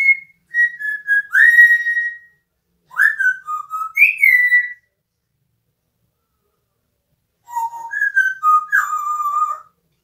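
African grey parrot whistling a tune: three short phrases of gliding, pitched notes, with a pause of a couple of seconds before the last phrase.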